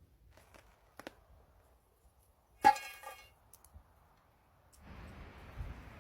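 A single sharp clink of cookware, ringing briefly, a little before halfway. Soft rustling noise near the end.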